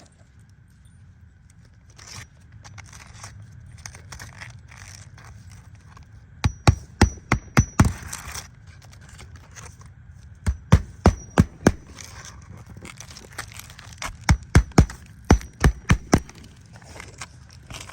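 Hammering in three quick bursts of about six to nine blows each, roughly four blows a second, with short pauses between the bursts.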